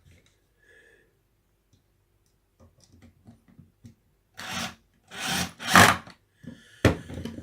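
Scrap timber being worked with a hand tool: a few light ticks, then three loud rasping strokes on the wood in quick succession, followed by a sharp knock near the end.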